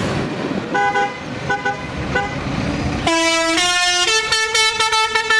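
Vehicle air horns sounding: three short toots in the first couple of seconds, then, from about three seconds in, a musical multi-note horn plays a quick tune of changing notes, over traffic noise.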